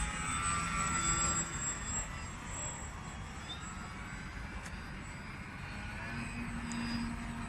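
Small electric RC aerobatic plane in flight: its motor and propeller give a thin whine that drifts up and down in pitch as it manoeuvres, over a low rumbling noise.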